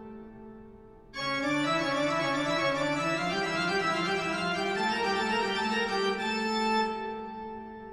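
Background music of sustained organ chords: one chord fades out, then a new chord with moving inner notes comes in about a second in and holds before fading away near the end.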